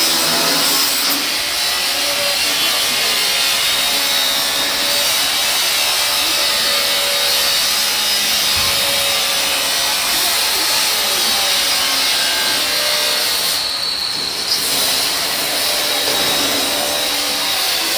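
Shielded metal arc (stick) welding: the arc crackles and hisses steadily, with a brief drop about fourteen seconds in.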